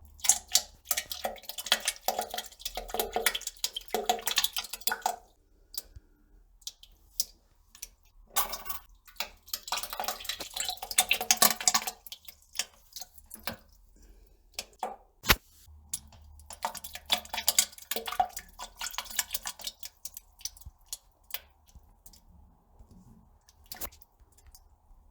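A person defecating and passing gas: wet, crackling spells of flatulence in three stretches of a few seconds each, with scattered single pops between them.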